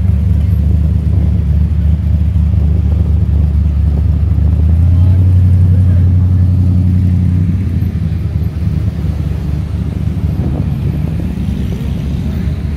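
Sports car engines running at low speed as cars drive slowly past, a steady low rumble. It swells to its loudest as a Lamborghini convertible passes, about five seconds in, then eases off as an Audi R8 Spyder follows.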